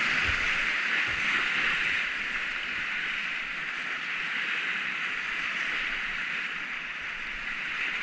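Whitewater of the Enns rushing steadily around a kayak, a little louder in the first two seconds.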